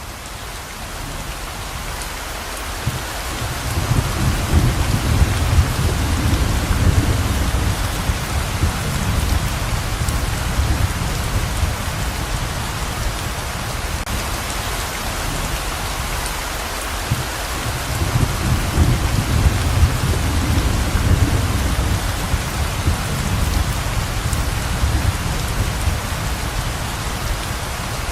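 Heavy rain pouring in a steady hiss that fades in over the first few seconds, with two long, low rolls of thunder, the first a few seconds in and the second past the middle.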